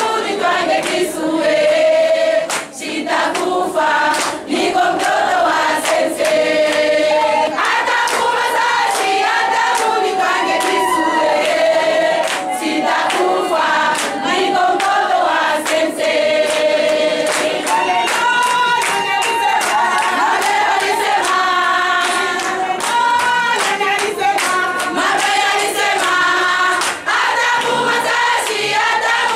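A group of women singing together in chorus, with sharp hand claps keeping a steady beat.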